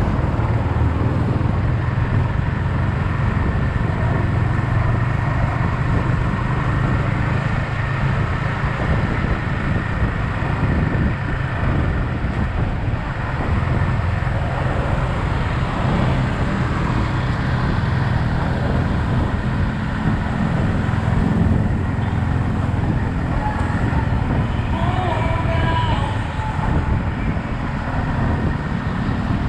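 Yamaha XSR 155 single-cylinder motorcycle riding in traffic: engine and road noise under a heavy, steady wind rumble on the camera microphone. A short wavering whine comes in near the end.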